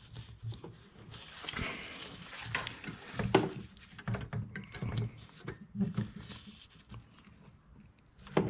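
Gloved hands handling a plastic headlight housing at its bulb socket: irregular clicks, taps and rubbing as the connector and bulb retainer are worked loose.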